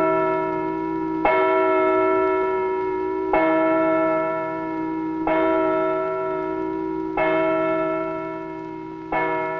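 A single church bell tolling slowly, struck five times about two seconds apart on the same note, each strike ringing on and fading before the next.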